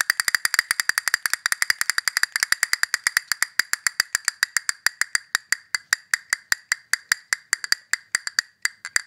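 Castanets clicking in a fast run that gradually slows, the clicks spreading out until they stop near the end, like a game-show prize wheel winding down.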